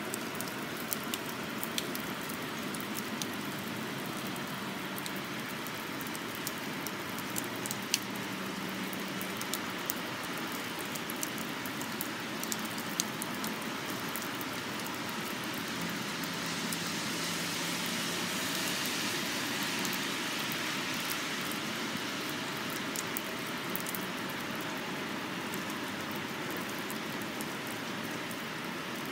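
Steady rain falling on wet asphalt: a continuous hiss with scattered sharp ticks of drops. The hiss swells for a few seconds about two-thirds of the way through.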